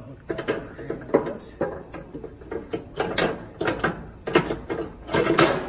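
Wire warming rack of a Weber Genesis II gas grill rattling and clinking against its mounts as it is wiped by hand: a run of irregular metallic clicks and scrapes, busiest and loudest near the end.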